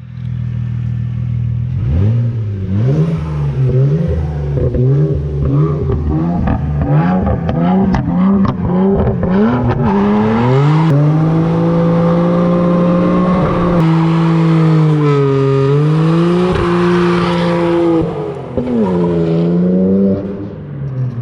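2008 BMW 335xi's N54 twin-turbo inline-six revving hard in a burnout. It blips up and down repeatedly for several seconds, then is held at high revs while the rear tyres spin, dipping and rising a few times before it drops back near the end.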